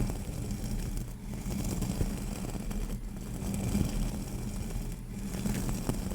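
Soft, steady low rumble with a constant hum underneath.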